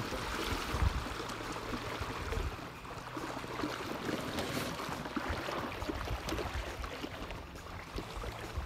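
Wind gusting against the microphone over choppy lake water: an uneven low rumble under a steady rushing hiss.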